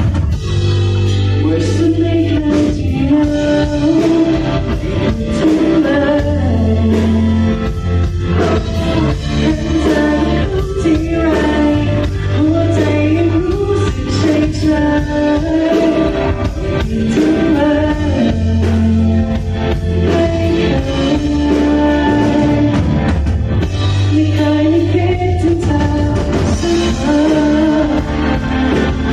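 Live band playing a song with a singer: a wavering vocal melody over held bass notes and a steady drum beat.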